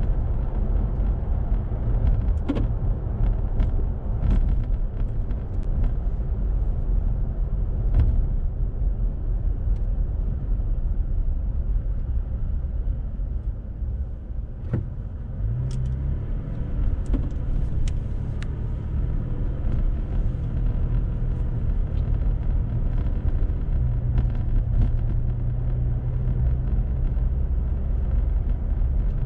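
A car's engine and road noise rumble steadily while driving, with scattered light clicks. About halfway through it eases off as the car slows for a stop sign, then the engine's hum rises again as it pulls away.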